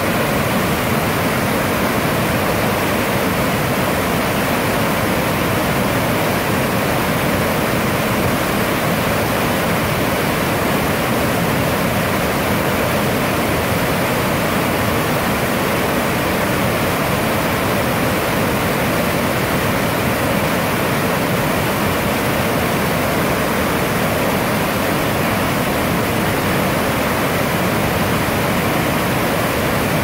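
Waterfall pouring as a curtain of water past the mouth of a rock cave, heard from just behind the falling water: a steady, loud rush of water.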